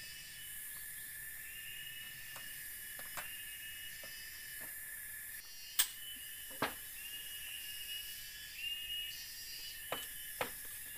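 Steady high-pitched chorus of forest insects, with a chirp that repeats every second or two. From about halfway, a few sharp knocks of bamboo being handled on the bamboo platform, the loudest one just past the middle.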